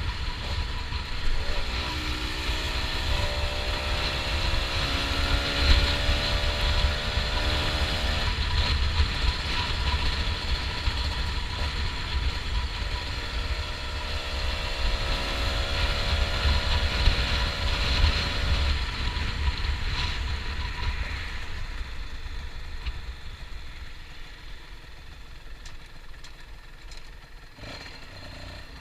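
Honda NSR125's two-stroke single-cylinder engine pulling up through the revs twice, its pitch rising each time, over wind rumble on the microphone. It drops to a quieter running note for the last few seconds.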